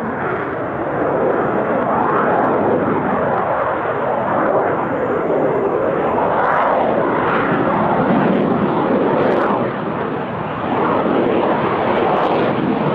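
Aero L-159 ALCA's single turbofan engine running as the jet flies past overhead: a loud, continuous jet roar whose tone sweeps up and down repeatedly, dipping briefly about ten seconds in.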